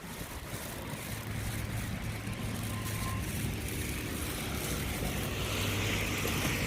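A motor vehicle's engine running with a steady low hum, and a rushing noise that grows louder near the end.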